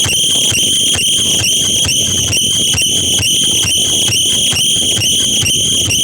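A loud, high-pitched electronic tone played through a DJ sound system, holding several steady pitches at once and pulsing evenly about three times a second, like an alarm.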